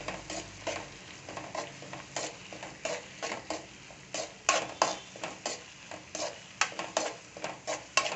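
A spatula stirring and scraping against a metal kadai, about two to three strokes a second, over a light sizzle of onion, tomato and ginger-garlic paste frying in oil. The paste is being sautéed until its raw smell goes.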